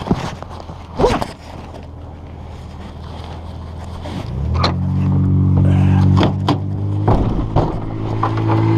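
A vehicle engine running: a low hum at first, then about four seconds in its drone rises and settles into a louder, steady run. Several sharp knocks and clanks sound over it.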